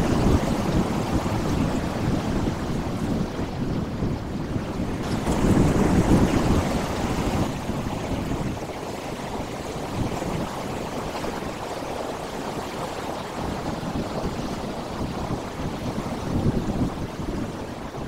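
Sea waves breaking and washing over shoreline rocks: a continuous rushing surf that swells louder as each wave breaks, at the start, around six seconds in and again near the end.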